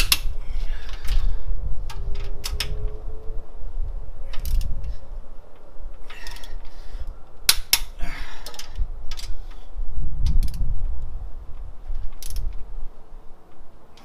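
Ratcheting torque wrench on the ARP head-stud nuts of an LS1 cylinder head, during the final tightening pass to 75 foot-pounds. Scattered sharp metallic clicks come at uneven intervals, with low thuds and clunks from working the wrench in the engine bay.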